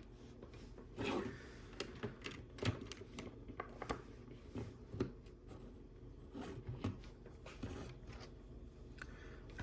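Plastic LEGO pieces clicking and tapping as they are handled and pressed together, a scattering of light clicks every second or so.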